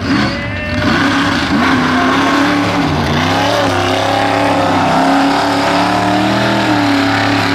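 Mega truck engine running hard at high revs through a mud bog, its pitch wavering up and down as the driver works the throttle.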